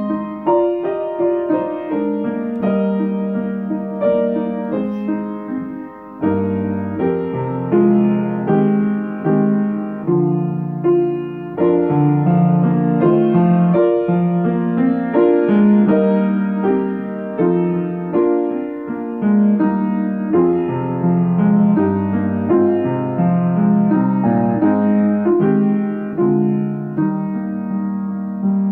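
Solo grand piano playing a slow, gentle piece of held chords and melody notes that ring and fade. A phrase ends about six seconds in, and the next one opens with low bass notes.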